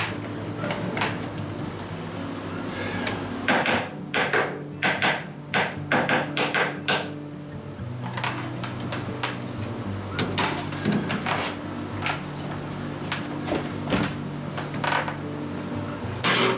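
Sharp metallic taps and knocks of a small hammer on a steel workpiece at a lathe, a quick run of them a few seconds in and then single taps spaced out, over a steady low hum of shop machinery.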